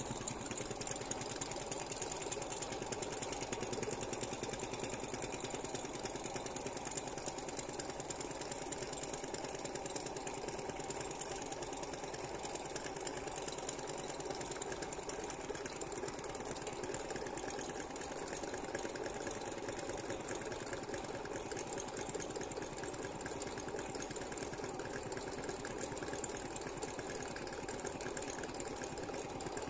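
Homemade tin-can hot air engine running: a steady, rapid mechanical rattle that keeps on unchanged while a pony brake is set against its shaft.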